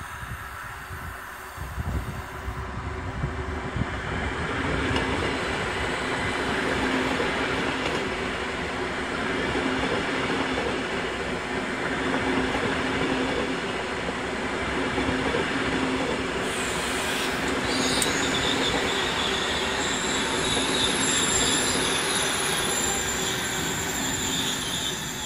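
PKP Intercity ED250 Pendolino electric multiple unit rolling past along the platform: wheels on rail with a steady hum and a high whine. The sound builds about two seconds in, holds loud while the carriages pass, and fades near the end.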